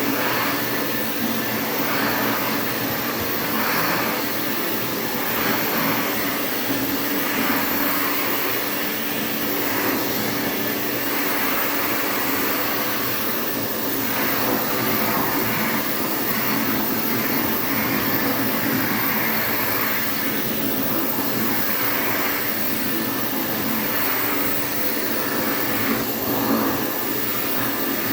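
Interstate Compact C6 vacuum cleaner running steadily while vacuuming, its motor hum and airflow hiss swelling and easing every couple of seconds.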